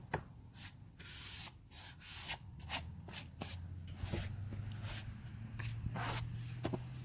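Hands sweeping sawdust off the face of a freshly sawn yew slab in a series of quick rubbing strokes, with a low steady hum underneath that rises slightly in pitch about halfway through.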